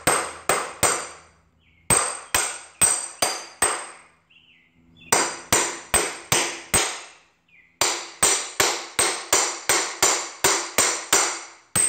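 Claw hammer tapping a steel socket to drive a new wheel bearing into a motorcycle wheel hub: sharp metallic taps with a ringing note, about three a second, in several runs separated by short pauses as the driver is moved around the bearing's edge.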